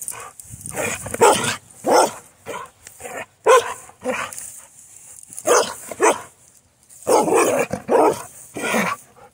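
A Carolina dog barks in play: about a dozen short, sharp barks, mostly in quick pairs with brief pauses between them.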